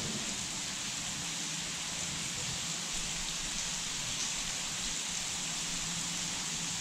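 Steady rain falling on the water, an even hiss with no breaks.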